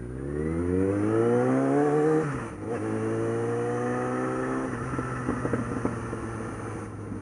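Suzuki GSX650F's inline-four engine accelerating hard, its note rising for about two seconds. The note dips briefly at a gearshift and climbs again more slowly in the next gear. About two-thirds of the way through, the throttle is closed and the note falls away.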